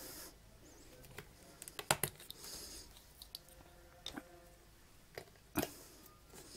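Sunflower oil bottle being handled over a frying pan: scattered faint clicks and taps, the loudest about two and five and a half seconds in, with a brief soft hiss between them.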